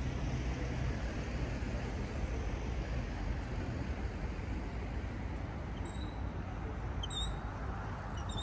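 City street traffic noise with a low engine hum that fades about a second in, and several short high chirps in the last couple of seconds.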